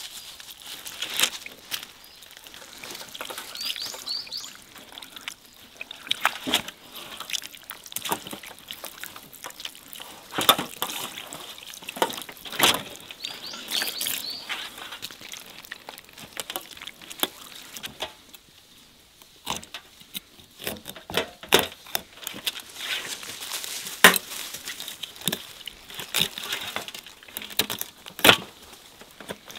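Water poured in a thin stream over a whole sturgeon on a metal tray while hands rub and wash it: trickling and splashing, with many irregular wet slaps and knocks against the fish and tray.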